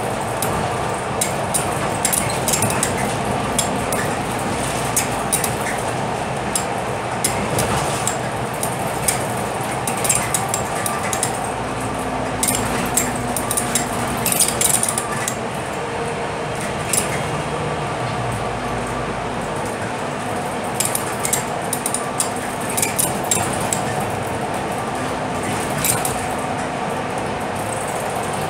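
Inside a moving Scania K320UB city bus: the steady drone of its engine and tyre noise, with frequent light clinks and rattles from the body's fittings throughout.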